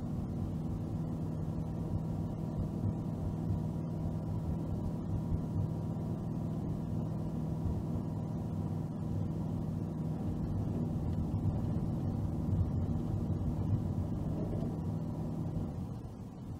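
Car driving on the road: a steady low engine hum with tyre and road rumble, easing briefly near the end.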